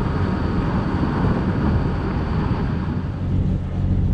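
Steady low rumble of a harbour cruise boat's diesel engine running under way, with wind noise on the microphone.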